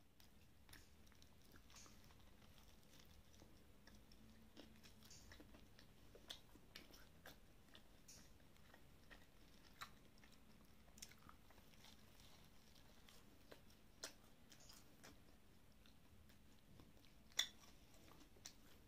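Faint crunching and chewing as a crisp, breaded Taiwanese fried chicken cutlet (jipai) is bitten into and eaten, with scattered crackles of the crust and one louder crunch near the end.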